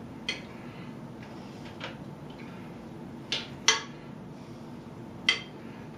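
A spoon clinking against a cooking pot as a pot of beans is stirred on the stove: about five short, sharp clinks, the loudest a little past halfway, over a steady low background hum.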